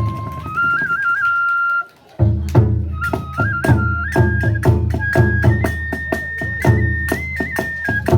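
Kagura hayashi music: a bamboo flute plays a stepping melody over steady drum strikes. The music cuts out for a moment about two seconds in, then resumes.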